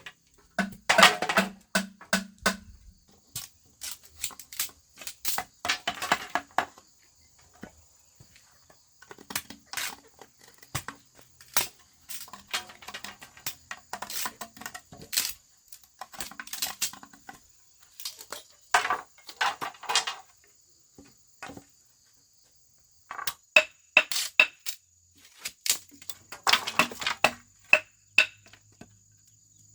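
A run of irregular sharp knocks and taps, some with a short ringing tone, coming in clusters with pauses of a second or two between them.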